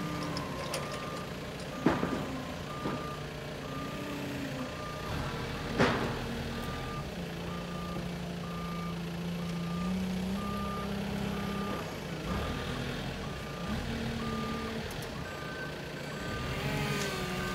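Cesab Drago 350 electric forklift's travel warning alarm beeping at a steady even rate over a low motor hum that shifts in pitch as the machine drives and lifts. Two sharp knocks come about 2 and 6 seconds in, and a second, higher-pitched beep joins near the end.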